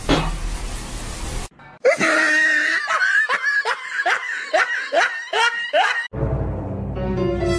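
A rushing hiss for about a second and a half. Then a person laughing in a quick string of gliding 'ha' bursts, about ten of them over four seconds, which stops abruptly as music starts near the end.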